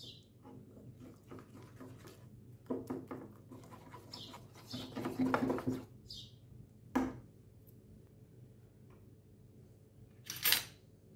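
Wire whisk beating a thick egg, butter, peanut butter and honey mixture in a ceramic bowl: quick scraping and clinking strokes, loudest about three and five seconds in. A single knock about seven seconds in and a short, louder scrape near the end.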